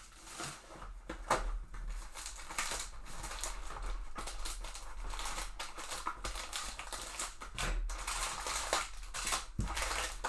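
Hands opening a box of trading card packs: rustling, crinkling and tearing of cardboard and pack wrappers, with many small clicks and taps.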